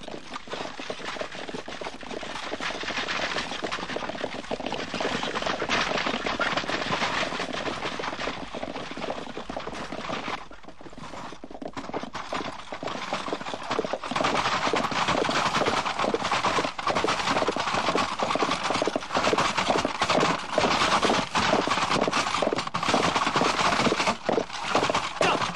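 Hoofbeats of horses pulling chariots: a dense run of rapid thuds, with a short lull about ten seconds in and much louder in the second half.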